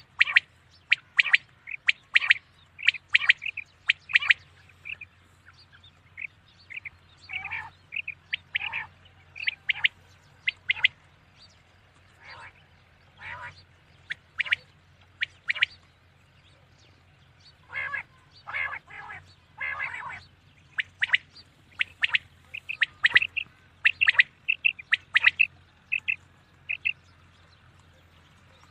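Common quail calling over and over: short, sharp notes in quick runs, with short pauses between the runs.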